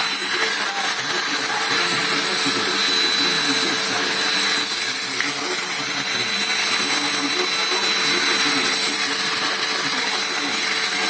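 Vacuum cleaner running steadily: an even, unbroken rush of air with a thin, steady high whine over it.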